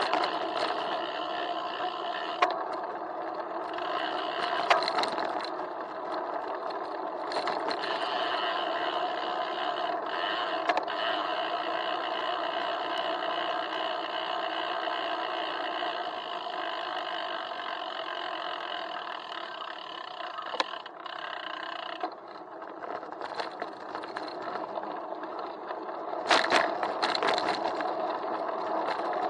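Ride noise of a bicycle picked up through a handlebar-mounted action camera in its waterproof housing: a steady hum of road vibration, with sharp knocks and rattles as the wheels hit bumps in the street. There are several knocks spread through it and a cluster near the end.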